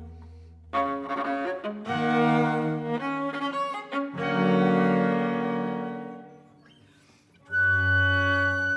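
Viola and double bass playing long, sustained notes in a slow chamber piece. The notes swell and fade, dying away almost to silence about seven seconds in, then a loud new chord comes in.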